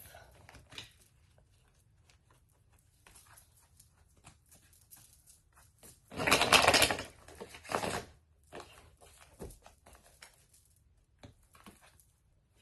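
Tarot cards being handled on a table: scattered light taps and clicks, with a louder rustling burst of about a second roughly six seconds in and a shorter one near eight seconds.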